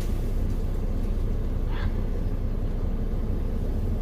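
A car engine idling steadily, heard as a low rumble from inside the cabin.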